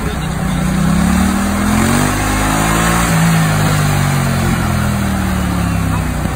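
Yamaha MT-07's parallel-twin engine revving on a wheelie simulator: the revs climb over the first two seconds or so, hold, then fall back towards the end as the bike comes down off the wheelie.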